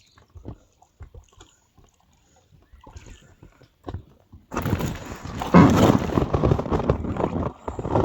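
Scattered light knocks and taps, then about four and a half seconds in a sudden switch to loud sloshing and splashing water around a small boat in a shallow river.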